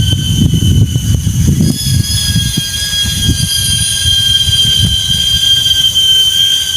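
Heavy rain and gusting wind making a loud, uneven low rumble, heaviest in the first couple of seconds. A steady high-pitched whine holds on above it throughout.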